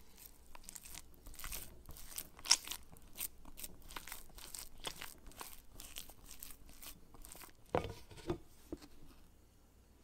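Hands kneading and pressing sticky gluten-free multigrain sourdough dough in a glass bowl, making a run of irregular short wet smacks and clicks. One is sharper about two and a half seconds in, and there are two duller thumps near the end.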